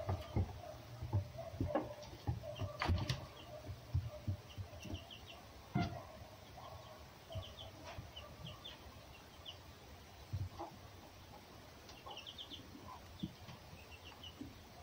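Irregular knocks and scuffles of animals moving on and around a wooden box, busiest in the first half. Background bird calls include repeated clusters of quick high chirps.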